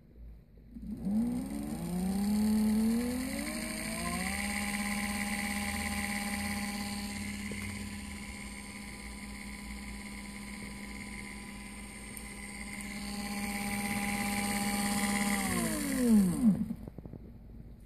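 GNG brushless e-bike motor, driven by a 12-FET Lyen controller at 24 V, spinning free on the bench: it whines up to speed in rising steps about a second in, holds a steady whine, then winds down in pitch and stops near the end.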